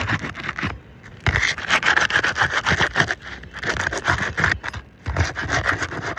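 Asphalt roof shingles being scraped and worked loose, a rapid run of rubbing, scraping strokes that stops briefly twice. This is the sealed tabs being broken free so the damaged 3-tab shingle can be removed.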